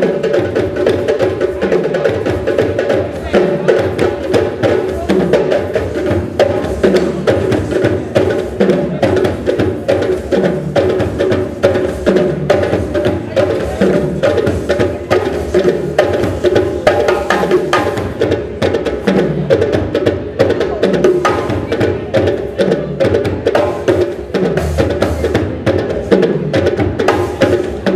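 Music driven by fast percussion: clicking wood-block-like strikes and drums over held mid-range tones, with a low note that falls in pitch and repeats at a regular pace.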